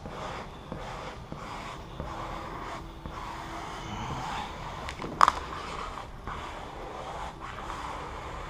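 Squeegee rubbing and scraping over vinyl wrap film on a car hood, pressing the stripe down, with one sharp tap about five seconds in.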